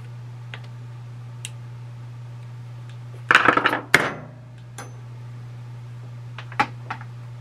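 Handling clatter as a muzzleloader rifle is lifted off a plastic gun-cleaning cradle: a loud burst of clinks and knocks about three seconds in, ending in one sharp knock, then a few light clicks near the end as the ramrod is picked up. A steady low hum lies underneath.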